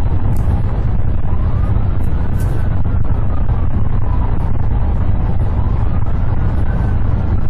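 Heavy low rumble of a police cruiser driving at highway speed, engine and road noise, with a police siren wailing slowly up and down underneath.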